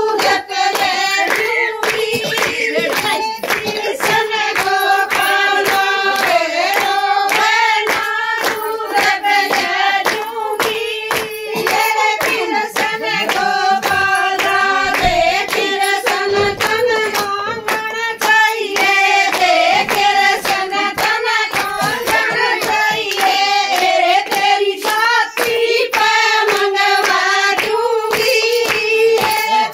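Women singing a Haryanvi devotional folk song (bhajan) to steady hand-clapping that keeps the beat.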